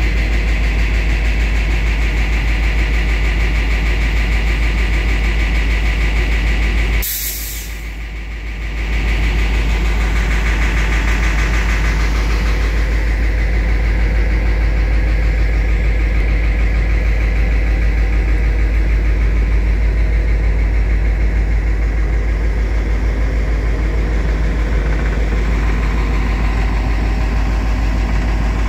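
Caltrain F40PH diesel locomotive standing at the platform with its engine idling: a loud, steady, deep rumble. The level dips briefly about seven seconds in, and a higher hiss fades out about twelve seconds in.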